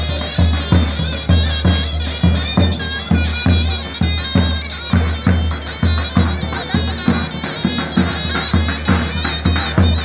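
Davul and zurna playing a folk dance tune: the zurna's shrill reed melody over steady deep davul beats, about two a second.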